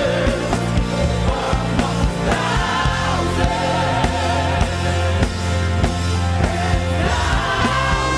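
Live gospel worship music: a band with a steady drum beat and sustained bass, with singing over it.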